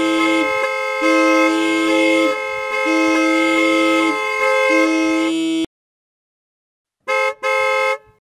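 A vehicle horn sounding in long held notes that alternate between a lower and a higher pitch, cutting off suddenly about five and a half seconds in. Two short horn blasts follow near the end.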